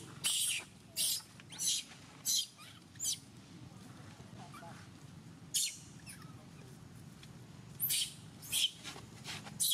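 Baby long-tailed macaque squealing in short high-pitched bursts: five in a row about two-thirds of a second apart, one more a little after the middle, and three more near the end.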